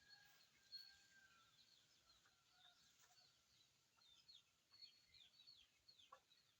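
Faint birdsong: many quick, high chirps sliding downward, with one longer held call near the start.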